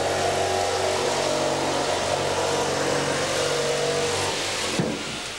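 Power drill running at a steady speed while drilling into a wall. The motor stops about four seconds in.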